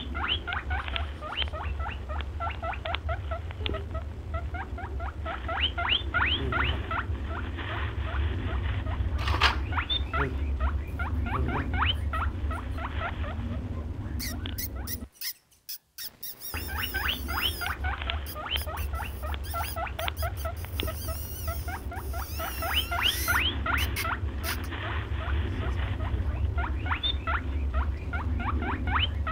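Rapid high squeaking chirps, several a second, each rising quickly in pitch, over a steady low hum. About halfway through, the sound cuts out for a second, then the same run of chirps starts over.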